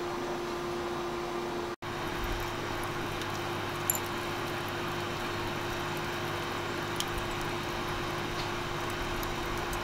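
Charcoal fire burning hot in a kamado grill: a steady rushing noise under a faint hum, with a couple of small crackles.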